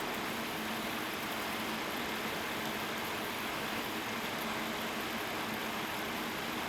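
Computer running with a steady fan hiss and faint steady whining tones: coil whine from the voltage-regulator chokes of an Asus P5K motherboard, which start to whistle as the Xeon X5450's load rises.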